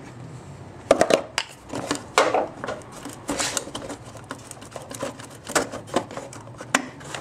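Irregular plastic clicks and knocks of a headlight wiring connector being worked loose and unplugged by hand.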